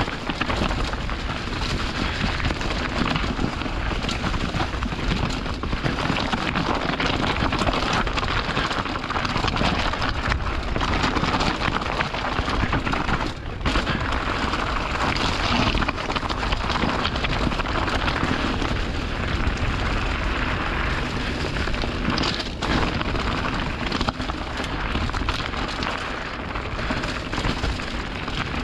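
Mountain bike rolling fast downhill over loose stones and dry leaves: a steady crunch and clatter of tyres on rock and gravel, with the bike rattling over the bumps and wind rumbling on the microphone.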